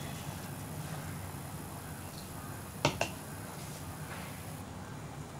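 Steady low noise of a stove heating a steel pot of water, with two sharp clicks close together about three seconds in.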